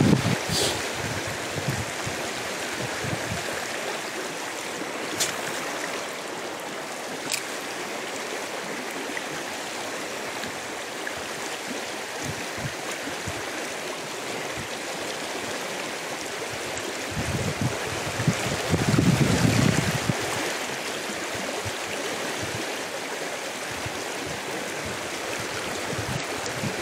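Fast shallow river riffle rushing steadily over stones, with a brief low rumble about two-thirds of the way through.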